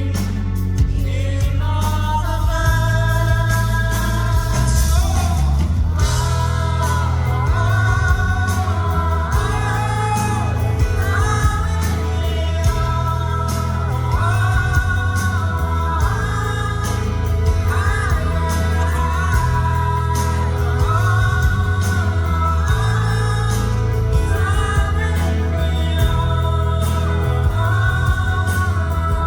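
Live rock band playing, with a lead singer holding long, bending sung notes over heavy bass and steady drums.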